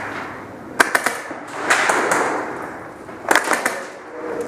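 Airsoft guns firing: a few sharp cracks about a second in, then a quick burst a little past three seconds, over a noisy arena background.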